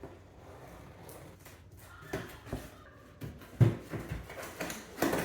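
A cardboard box being opened and its contents handled: scattered rustling and knocks starting about two seconds in, with one sharp thump about halfway through.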